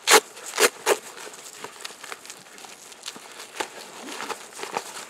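Fabric of a nylon plate-carrier vest rustling and scraping as gloved hands pull a soft armour panel out of its back pouch. Three short, sharp rasps come in the first second, followed by softer scattered rustling.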